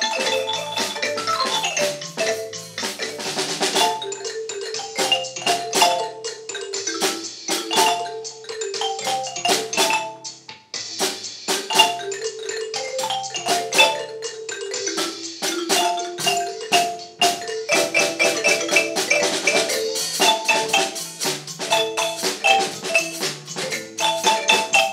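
An ensemble of wooden-bar Orff xylophones played with mallets: many quick struck notes in several layered parts, low and high. The playing thins to a short break about ten seconds in and then carries on.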